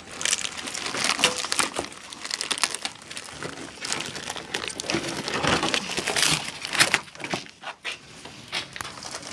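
Cardboard box and plastic wrapping rustling and crinkling as a new radiator is handled in its packaging, with irregular sharp crackles.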